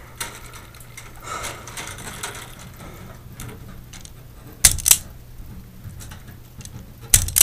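Self-adjusting wire stripper snapping shut and springing open on a fixture wire: two pairs of sharp clicks, one about five seconds in and one near the end, with faint handling noise in between.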